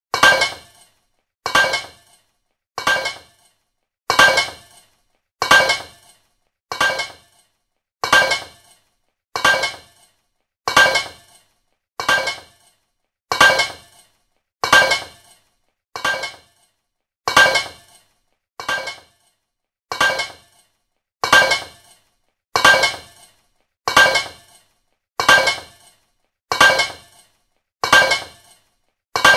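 A metal pipe dropped onto a fabric surface, clanging with a short metallic ring, the same clang repeated about once every 1.3 seconds.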